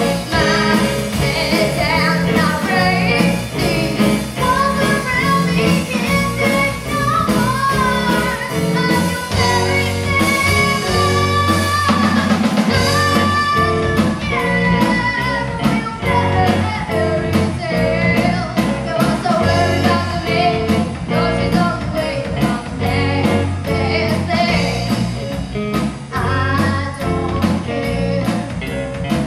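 Live rock band: a young girl singing lead over electric bass and a drum kit keeping a steady beat.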